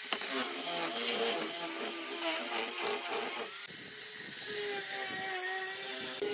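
Electric angle grinder with a sanding disc, running and sanding a wooden board. In the second half its motor whine settles into a steady tone.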